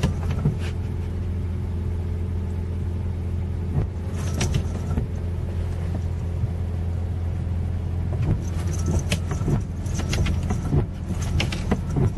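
Car running with a steady low hum inside the cabin, while the windshield wipers sweep the wet glass with irregular knocks and rubbing sounds, most frequent in the last few seconds.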